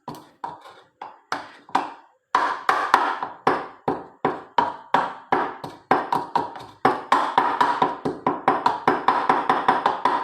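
Pestle pounding alligator pepper seeds in a small mortar: a steady run of sharp strikes, about four a second, each with a short ring, broken by a brief pause about two seconds in.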